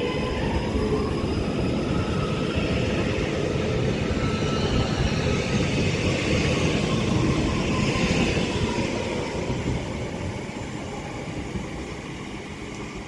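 Northern Class 331 electric multiple unit pulling out of the station: a rising run of wheel and motor noise with a faint electric whine, loudest about halfway through, then fading as the train draws away.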